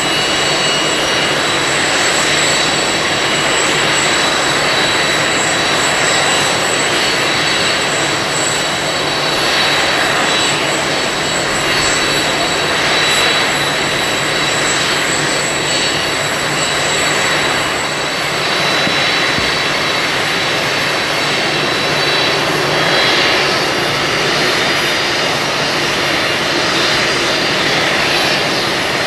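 Boeing 747-400D jet airliner's four jet engines running: a steady rush with a high, even whine over it.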